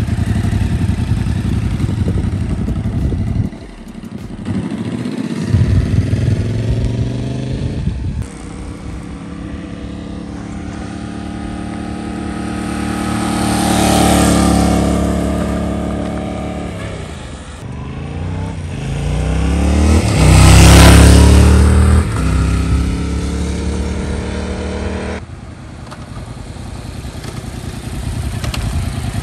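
Yamaha MT-07's 689 cc parallel-twin engine running through its stock exhaust, revved up and back down several times. The two biggest rises in pitch and loudness come about 14 s and 21 s in.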